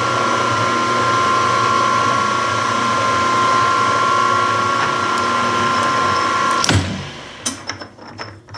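Milling machine spindle running under power with a steady whine, turning the tap in the freshly threaded hole, most likely backing it out after full depth. It shuts off sharply about seven seconds in and dies away over the next second.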